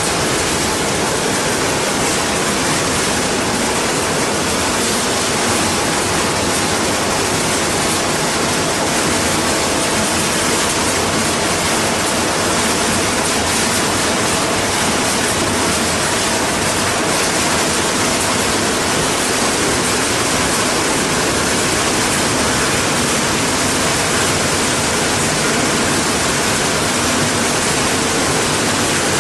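Plastic colour-sorting machine running: a loud, steady rushing hiss with no distinct knocks or tones.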